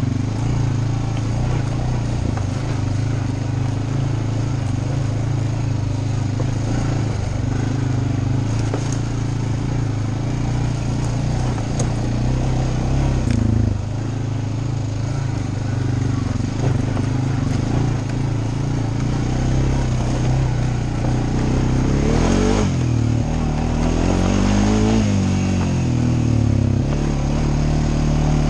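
Dirt bike engine running steadily under way, its pitch rising and falling a couple of times about three-quarters of the way through as the throttle is worked.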